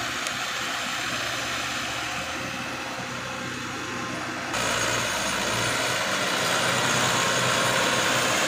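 Diesel engine of a 105-horsepower rubber-tracked tractor running steadily as it pulls a rotary tiller through a muddy paddy. The sound gets louder about halfway through.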